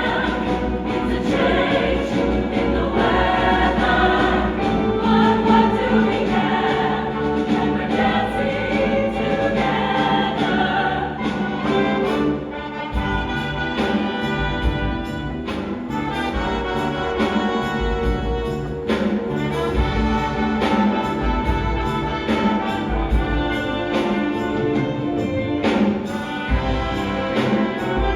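A choir singing a Christmas song with orchestral accompaniment; about 13 seconds in the voices give way to a more instrumental passage with brass and a steady beat.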